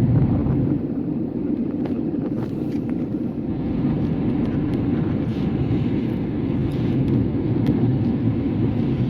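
Steady cabin noise of an airliner, heard from inside the passenger cabin: a low, even rumble of engines and airflow with a few faint clicks.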